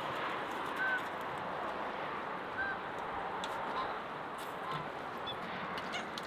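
Domestic waterfowl in a farmyard flock giving a few short honking calls, spaced a second or two apart, over a steady rushing background noise.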